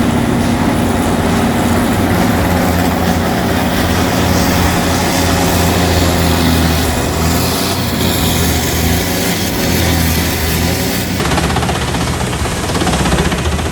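Large forestry drum chipper running: a steady heavy engine drone with a loud hiss of chipping over it. The sound shifts about eleven seconds in, when the highest hiss drops away.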